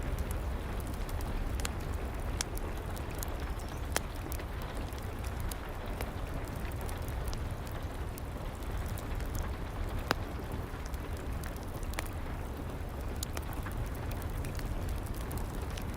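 Steady rain with a low rumble beneath it, and a wood fire in a fireplace crackling with scattered sharp pops, a few louder ones standing out.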